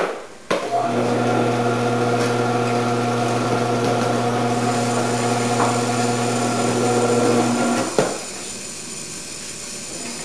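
Omcan HLC 300 commercial vegetable processor switched on and running with a steady electric-motor hum as cheddar is grated through its grating disc. It stops with a sharp click about eight seconds in.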